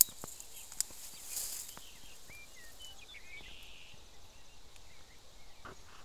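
Outdoor summer ambience: light rustling of grass underfoot in the first couple of seconds, then a few short, faint bird chirps over a steady quiet background.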